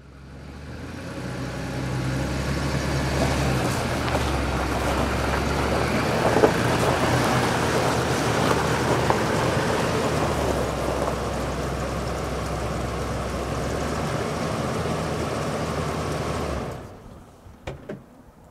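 Jeep Liberty SUV engine idling steadily, then switched off near the end, followed by two light clicks.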